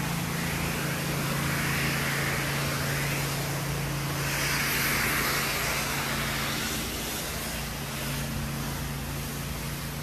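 Pressure washer running with a steady engine hum, and two swells of hissing, the louder one about four to six seconds in.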